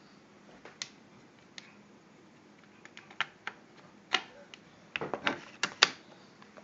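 Scattered sharp clicks and taps of a paintball marker being handled, with a quick run of clicks near the end.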